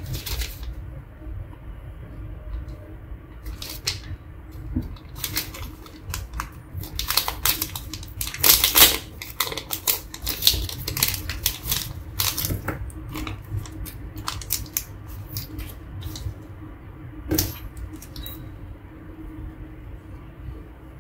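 Clear plastic pen packaging being handled and torn open: irregular crinkling and crackling of the plastic, densest in the middle of the stretch, with a few separate sharp clicks before and after.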